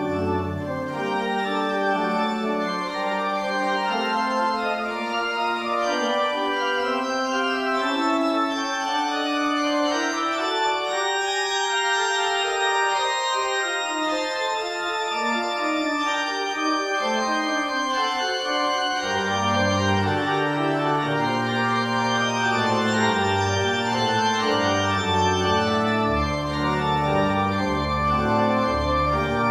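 Church organ with three keyboards playing a slow piece of sustained, changing chords. The low bass notes drop away after the first second and come back in about two-thirds of the way through.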